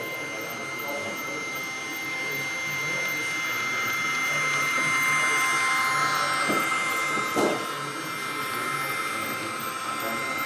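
Märklin H0 model steam locomotive hauling a LUX track-cleaning car past close by: a steady high motor whine with a vacuum-like hiss that grows louder toward the middle, then drops slightly after two short clicks.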